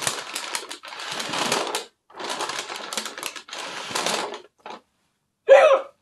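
Paper bag crinkling and crackling in several long bouts as a man breathes in and out of it. Near the end comes one short, loud hiccup.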